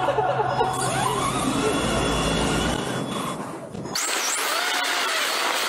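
Electric RC car driving, its motor whine rising and falling with speed over the noise of the tyres. About four seconds in the sound changes abruptly to a hissier drive with little low end.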